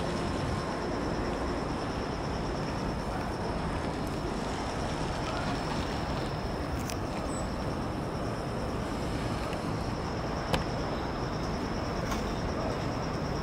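Steady city rumble of distant traffic along the river, with a thin, steady high trill of insects over it. A sharp click about ten seconds in.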